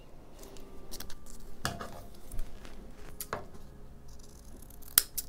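Paper collage pieces being handled and pressed down onto watercolour paper: soft rustling with a few light taps. Near the end comes a sharp snip as scissors start cutting a paper shape.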